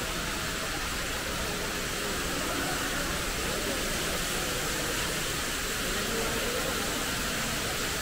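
Steady, even background hiss of a large indoor aviary hall, with no distinct bird calls or sudden sounds standing out.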